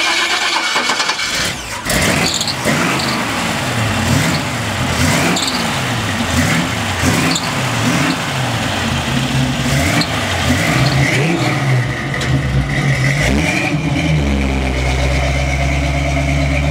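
Small-block Chevy V8 with headers being revved over and over, its pitch rising and falling roughly once a second. Near the end it settles into a steady low drone as the truck pulls away.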